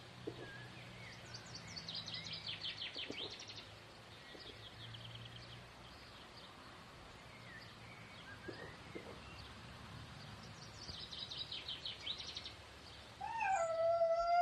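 Outdoor park ambience: songbirds singing high, rapid chirping trills in two spells over a faint low hum. Near the end, a louder drawn-out pitched call bends up and then holds for about a second and a half.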